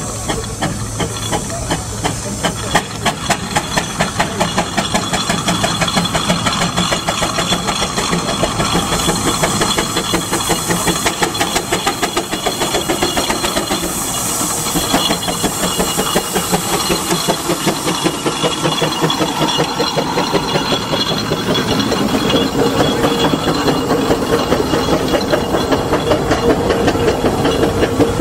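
Burrell steam traction engine working hard under heavy load: a rapid, even beat of exhaust chuffs with hissing steam.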